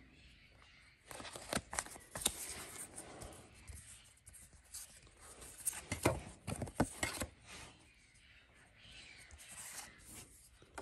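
Pokémon trading cards being flipped through by hand: stiff card stock sliding and rustling, with sharp clicks as cards snap together about a second and a half and two seconds in, and again around six and seven seconds.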